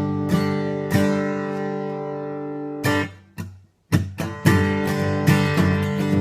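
Martin D-18 dreadnought acoustic guitar with Elixir phosphor bronze medium strings, chords strummed with a pick. A few chords ring out, the strings are damped to a brief silence a little past halfway, then a quicker run of strumming follows.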